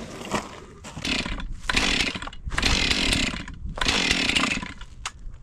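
Long-stored two-stroke chainsaw being pull-started on freshly mixed fuel: repeated pulls about a second apart, each giving a short burst of firing that dies without the engine catching.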